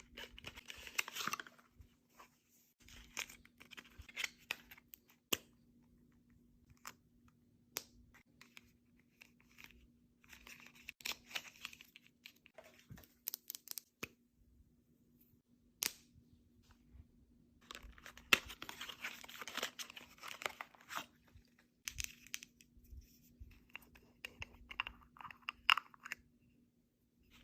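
Makeup packaging being torn open and crinkled by hand, in several bursts of rustling with sharp clicks and taps between them.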